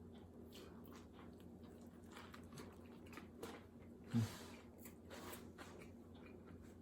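Close-miked chewing of a mouthful of In-N-Out 4x4 burger, with soft wet mouth clicks throughout and a brief low sound about four seconds in.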